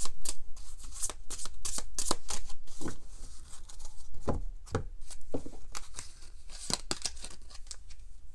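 A deck of tarot cards being shuffled by hand: a quick run of card flicks and snaps that thins out after the first few seconds, with two soft thumps about halfway through.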